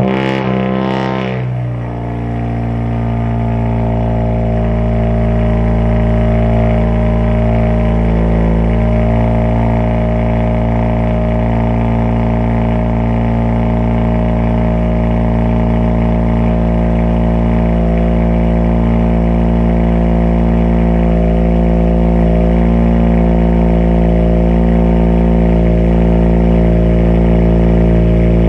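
2017 Honda Civic Si's 1.5-litre turbocharged four-cylinder on a cold start, through a catless front pipe, downpipe and straight-piped exhaust with no muffler or resonator. Just after it fires, the revs fall from the start-up flare over the first two seconds, then hold a steady fast cold idle.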